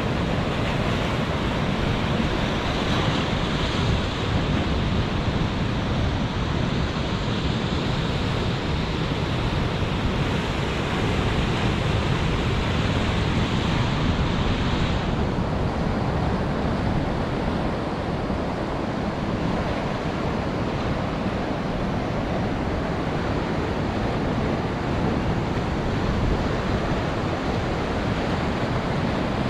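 Ocean surf breaking and washing in steadily, with strong wind blowing across the microphone. The higher hiss drops back a little about halfway through.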